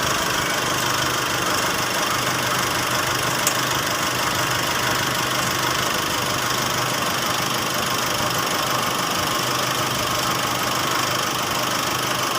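Car engine idling steadily, heard close in the open engine bay, with one faint click about three and a half seconds in. Its alternator is the part the mechanic is checking, and he judges it bad, with a ticking bearing noise.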